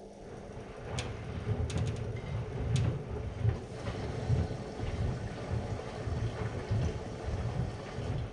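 AEG Lavalogic washing machine at work: an uneven low rumble with a few sharp clicks in the first three seconds, stopping at the end.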